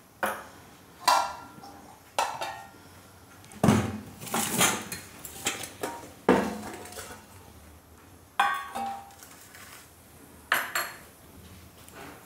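Stainless steel kitchenware handled and set down on a stone countertop: a steel bowl with a spoon and a round steel spice box. There are about ten irregular clinks and knocks, each ringing briefly.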